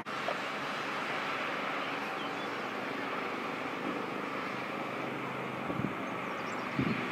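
Steady outdoor background hum, like distant road traffic. Near the end the wind buffets the microphone in a couple of low gusts.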